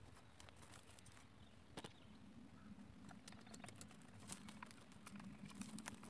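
Near silence broken by faint scattered clicks and rustling from hands and a hoe working garden soil, growing busier in the second half.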